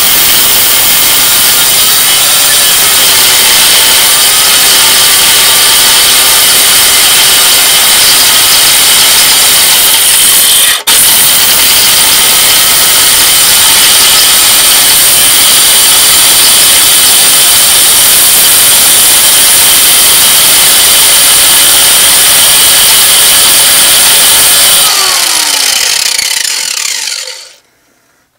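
Handheld angle grinder grinding into a 3/4-inch steel bolt, shaping it into a tap, a steady loud grind with a momentary break about eleven seconds in. A few seconds before the end the grinder comes off the work and winds down to a stop.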